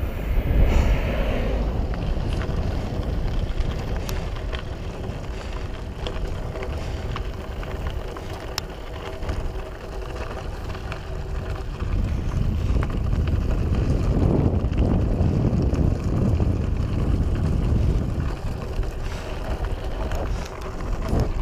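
Wind buffeting the microphone over the steady rumble of a loaded mountain bike's tyres and drivetrain riding up a dry gravel climb, with a few small clicks.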